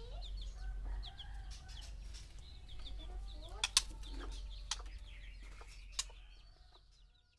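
White-rumped shamas calling: short chirps and whistled notes with a few sharp clicks, over a steady low hum. The sound fades out near the end.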